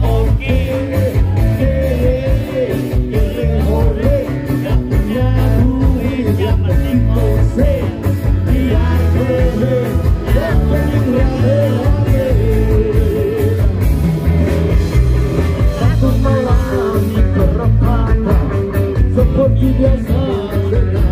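Ska band playing loud and live through a PA: electric guitars, saxophone, keyboard, bass and drums under a singer's vocals.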